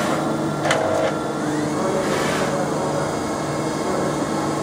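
EBOSA CNC 140 slant-bed CNC lathe running with a steady hum while its turret slide moves. There is a sharp click about a second in, then a short rising whine.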